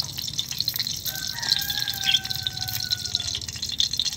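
Eggplant halves sizzling and crackling in hot ghee on a tawa griddle, a steady spitting fry. A faint held tone sounds through the middle.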